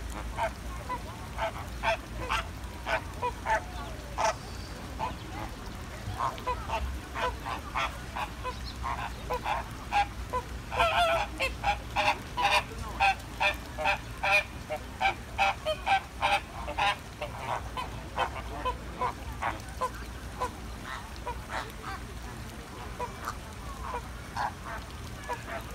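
A flock of American flamingos calling: many short, repeated calls, overlapping most densely around the middle, over a low steady hum.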